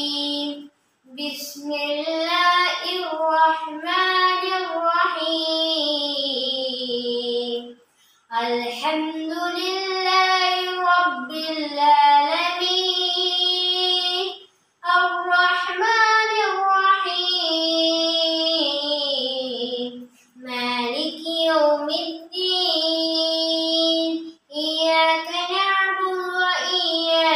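A boy singing an Islamic prayer solo and unaccompanied, in long held phrases with sliding, ornamented notes and short breaks for breath between them.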